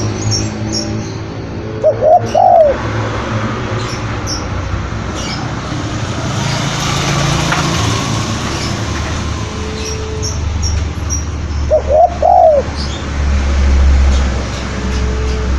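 Spotted dove cooing: two short phrases of its song about ten seconds apart, over steady background noise with faint high chirps of small birds.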